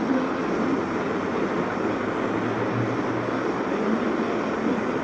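Handheld gas torch burning steadily as its flame heats a knife blade: a continuous rushing noise with no breaks.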